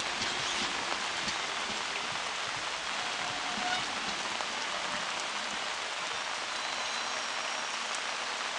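Steady rain falling on a wet platform and the sides of a standing passenger train: an even, continuous hiss of drops.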